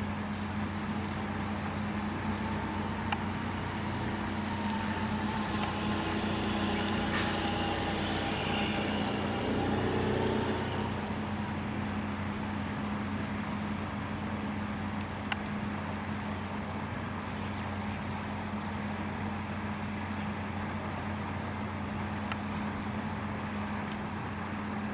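A steady low mechanical hum, with a faint tone swelling and fading about a third of the way in, and a few faint clicks.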